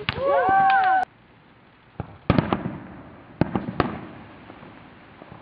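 Consumer fireworks. For about the first second several whistles glide up and down in pitch at once, then cut off suddenly. About two seconds in comes a run of sharp bangs and pops, about five in under two seconds, from aerial fireworks bursting.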